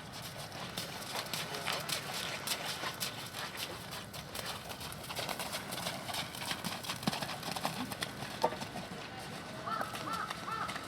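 Hoofbeats of a ridden Thoroughbred horse on arena footing: a steady run of irregular thuds and clops.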